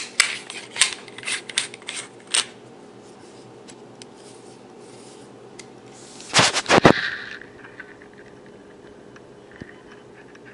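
Handling noise from a shotgun condenser microphone being fitted and adjusted: a run of sharp clicks and taps in the first two or three seconds, then a louder cluster of knocks and rubbing about six to seven seconds in.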